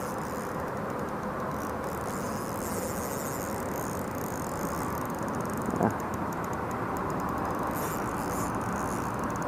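Steady rushing of moving river water, with the high, fine whirr of a spinning reel being cranked while a hooked fish is played on light 4 lb line. A short squeak a little past halfway.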